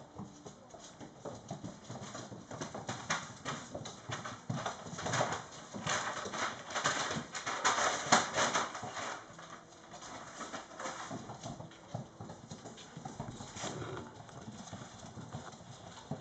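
Young mastiff puppies scrabbling over a hard wooden floor: a dense, irregular patter of claw clicks and paw steps, busiest about halfway through.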